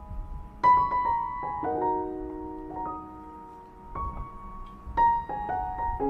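Background piano music: a gentle melody of single struck notes and chords, each ringing out and fading as the next begins.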